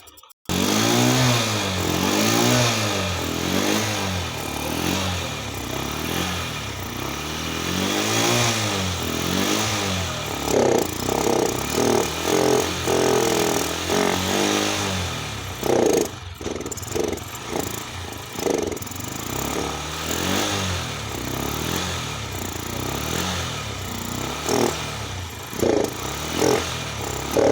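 Honda Shine 125 BS6's single-cylinder fuel-injected engine running and being revved up and down over and over, in slow waves for the first ten seconds or so, then in quicker sharp throttle blips. The engine is being warmed up after a cold hard start.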